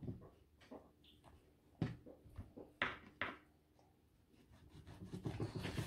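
Kitchen knife knocking on a wooden cutting board as beef is cut into small cubes: a few short, sharp knocks, the loudest a pair about three seconds in.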